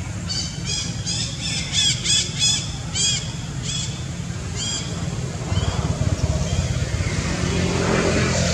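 Baby macaque squealing: a run of about ten short, high-pitched squeals in the first five seconds, over a steady low hum. The second half has no squeals, only a louder rushing noise.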